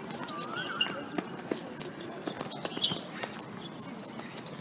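Korfball play on a court: scattered knocks of the ball and players' feet on the floor, with a couple of short squeaks in the first second.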